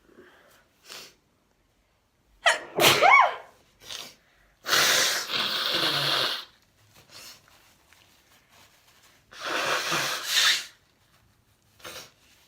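A person sneezes once, about two and a half seconds in, then blows their nose hard twice. Each blow is a long, noisy blast of a second or two.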